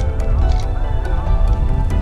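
Background music with heavy bass.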